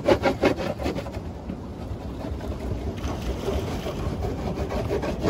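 A bar of surf wax rubbed back and forth on a surfboard deck in quick strokes, about five a second. The strokes fade after the first second and come back fainter near the end, over a steady low rumble from the boat.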